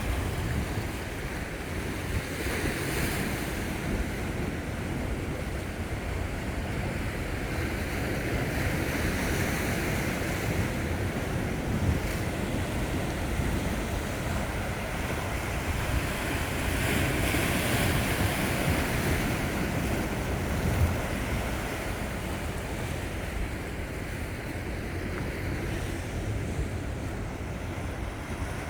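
Sea waves washing onto the shore in slow surges, the strongest a little past the middle, with wind rumbling on the microphone.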